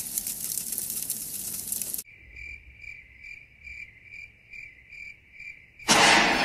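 Crackling hiss of burning fire trails. It cuts off about two seconds in, leaving a cricket chirping steadily about twice a second. Near the end a sudden loud rush of noise breaks in with a blue time-travel flash.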